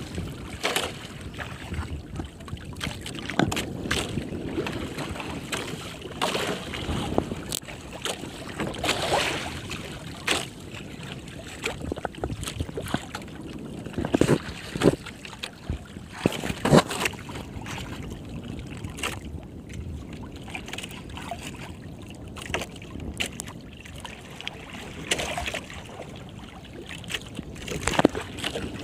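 Water slapping and sloshing against the hull of a small outrigger boat, with sharp splashes at irregular intervals.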